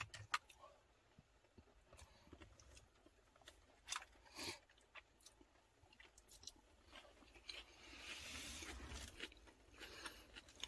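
Faint eating sounds: a person chewing and biting food, with a few soft clicks of chopsticks and a light hiss about eight seconds in.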